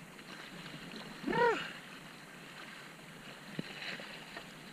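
Faint water lapping and trickling around a sea kayak moving in close to rocks. About a second in there is one short cry that rises and falls in pitch, and near the end a single small click.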